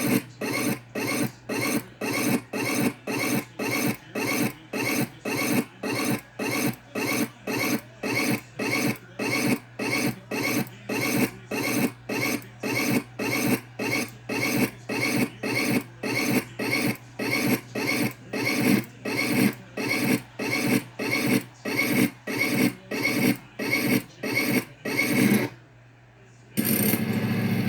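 Riding lawn mower running with a regular rasping pulse about twice a second over a steady hum. It cuts off about 25 seconds in, and after a second of quiet a steadier, louder running sound begins.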